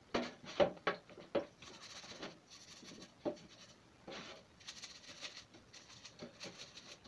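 Brush scrubbing an oily Chevrolet Astro valve cover in a tub of kerosene: irregular wet swishing strokes with small sloshes of liquid, quicker in the first second or so, then fainter.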